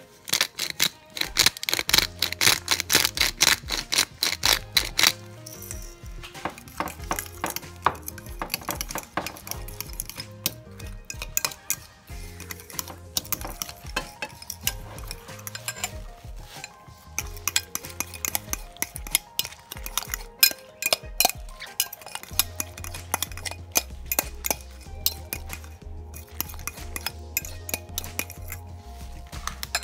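A metal utensil clinking and scraping against a dish, with rapid strokes for the first few seconds, then sparser, irregular clinks, as in mixing or working food in a bowl. Background music with a steady bass line plays underneath.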